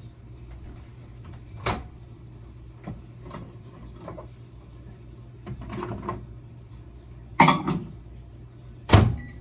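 Kitchen handling sounds while a microwave is loaded: scattered light knocks, then two loud bangs about a second and a half apart near the end as the microwave door is opened and slammed shut.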